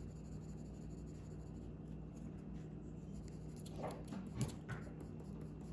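Brown coloured pencil scratching on paper as a small paper stem is coloured in, faint strokes with a few short, louder ones about four seconds in.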